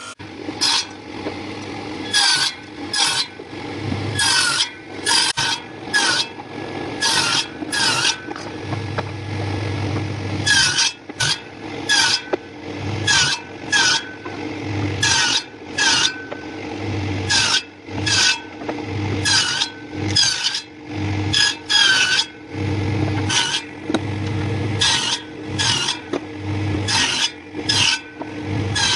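Hand tool rasping across wood in repeated strokes, about one a second.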